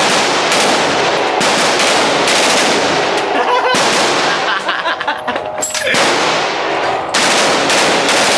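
A fully automatic firearm firing long bursts of rapid shots, with brief breaks near the middle.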